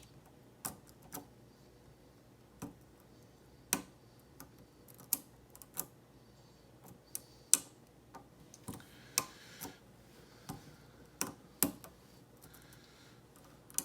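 Lock pick and tension wrench working in a pin-tumbler lock cylinder: irregular sharp metal clicks and ticks as the pick taps and sets pins, with some louder snaps among them.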